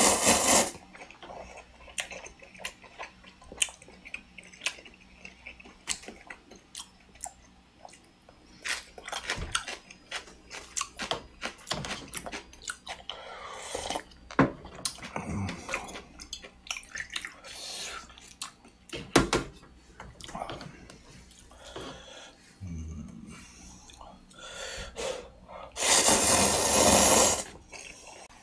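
Cup ramen noodles slurped hard off chopsticks, at the start and again for over a second near the end, with close-up chewing, small clicks and a sip of broth from the cup in between.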